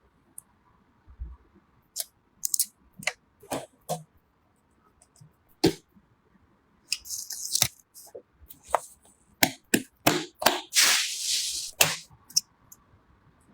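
Computer parts being handled and fitted: scattered sharp clicks and taps, with two spells of rustling, the longer and louder one about two thirds of the way in.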